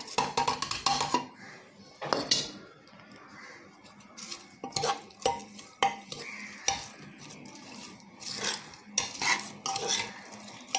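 A metal spoon stirring meat, onions and spices in a metal pressure cooker to mix in the salt, with irregular clinks and scrapes of the spoon against the pot.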